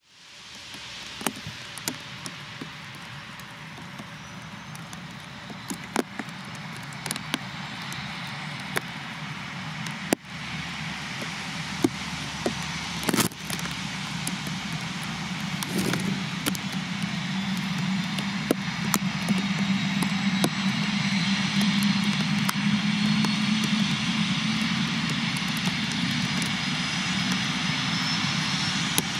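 Eurocopter EC145 rescue helicopter's turbine engines spooling up for take-off: a whine rising in pitch over a low running sound, growing steadily louder. Sharp ticks of rain are scattered throughout.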